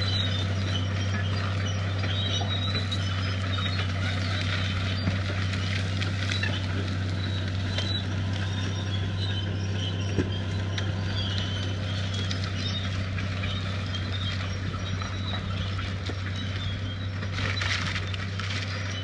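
Crawler bulldozer's diesel engine running steadily under load as it drags a heavy steel thinning bar through scrub, with scattered cracks of snapping brush and timber.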